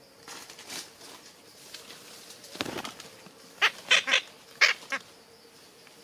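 Red-breasted parakeet calling: a lower call about halfway, then a run of about five loud, harsh squawks in quick succession.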